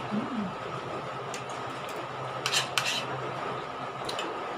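Spoons and forks clinking and scraping on ceramic plates and bowls during a meal, a few separate clinks with the loudest pair about two and a half seconds in, over a steady low hum.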